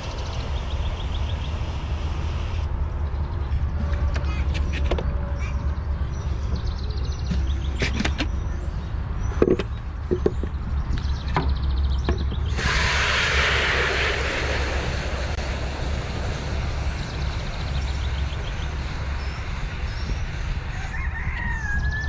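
Water running from a hose nozzle into a plastic bucket, the hiss growing brighter about halfway through and stopping shortly before the end, over a steady low rumble. A few sharp knocks from handling come in the middle.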